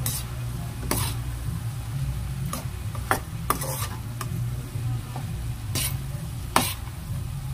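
A spatula stirring diced bamboo shoots and chicken in a non-stick frying pan: a faint sizzle under a steady low hum, with about seven sharp, irregular clacks of the utensil against the pan, the loudest near the end.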